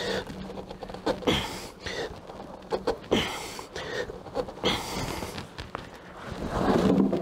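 A cloth shop rag and a gloved hand rubbing and rustling against a newly fitted oil filter and the engine casing, with scattered small clicks and knocks.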